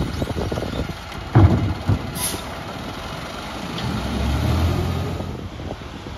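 Peterbilt New Way Sidewinder automated side-loader garbage truck running while its arm dumps a trash cart into the hopper. Heavy thuds about a second and a half in and again half a second later, a short hiss just after, then the engine revs up for a second or so as the arm brings the cart back down.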